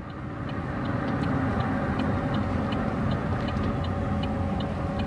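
Steady engine and road noise from the vehicle carrying the camera as it drives along a paved road, with a light high ticking a few times a second.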